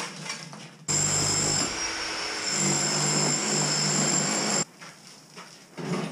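Light knocks of rubble being shovelled, then about a second in a corded power tool starts on the cemented brick hearth and runs steadily for nearly four seconds before cutting off suddenly.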